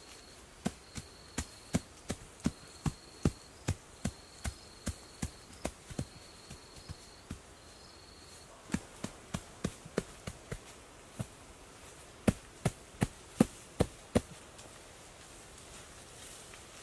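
Rhythmic slaps of bare hands patting freshly laid grass sod down onto an earth-covered roof, about three a second, in several runs with a short pause near the middle and the loudest slaps near the end. An insect's high buzz repeats in short pulses during the first half.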